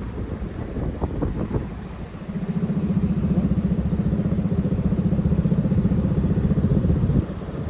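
Bus engine running with a steady, low pulsing rumble that comes in about two seconds in and stops abruptly near the end, over low street traffic noise.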